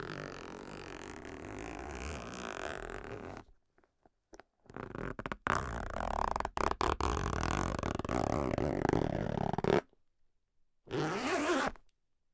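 Zipper being pulled in three separate strokes: a slow pull of about three and a half seconds, a longer pull of about five seconds broken by a few sharp clicks, and a quick short zip near the end.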